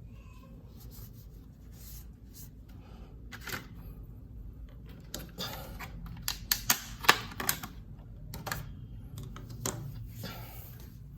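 Packaging being handled by hand: rustling, with a quick run of sharp clicks and taps past the middle.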